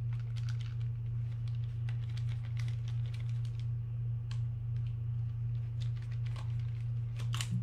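Light, irregular metal clicks and ticks of a screwdriver working the small side-plate screws out of a Shimano TLD 25 reel, over a steady low hum. There is a louder cluster of clicks near the end.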